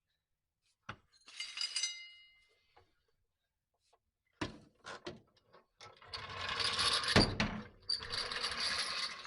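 Metal tools and parts clanking and scraping during transmission installation work: a click, a short ringing metallic clatter, a few knocks, then a longer stretch of rough scraping and rattling with a heavy thump in the middle.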